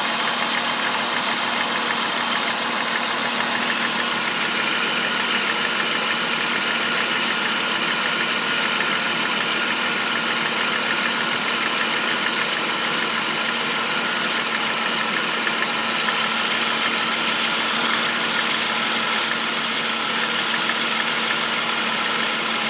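Jeep 4.0-litre straight-six engine idling steadily, with the ticking that the owner takes for lifter noise.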